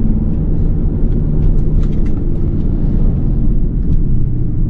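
Steady engine and road rumble heard from inside a moving vehicle's cabin.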